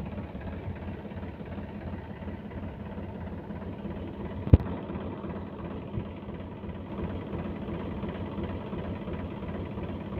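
Massey Ferguson 7250 DI tractor's three-cylinder diesel engine idling steadily, with one sharp click about halfway through.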